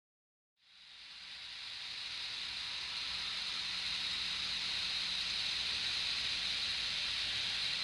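A hiss of white noise fades in from silence about half a second in and then holds steady: the opening noise wash of an electronic space-rock track.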